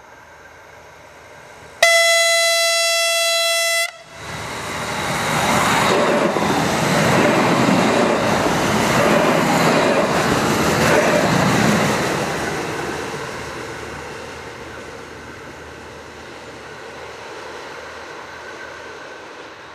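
Three coupled DB class 650 diesel railcars: one long horn blast of about two seconds as the train nears, then the train passes close, its running noise swelling quickly, peaking a few seconds later and slowly fading as it moves away.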